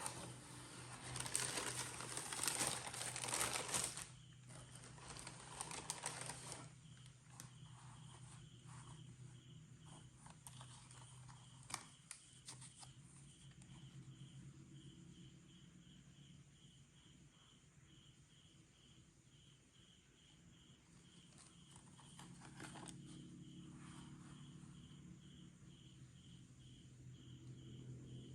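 Packaging wrapping crinkling as it is handled, loudest in the first four seconds and continuing for about two more, then lighter, scattered handling noises over a faint steady hum.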